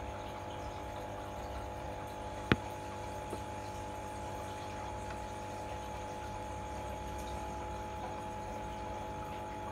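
Steady hum of an aquarium pump with a faint wash of water. A single sharp click about two and a half seconds in.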